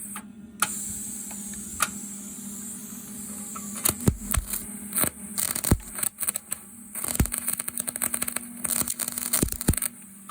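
Daihen welding machine in use: the arc crackling and sputtering with irregular sharp clicks over a steady electrical hum, stopping near the end.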